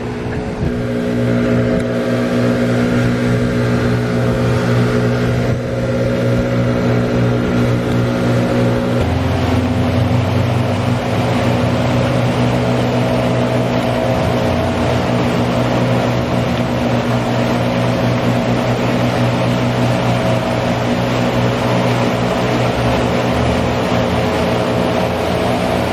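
Lake outflow water rushing and churning over a concrete spillway, a steady loud roar with a constant low hum running under it; the hum shifts slightly about nine seconds in.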